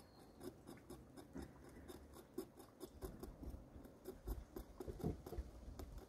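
Faint, irregular little clicks and scratches of a metal scalpel blade moving over the paper page of a book.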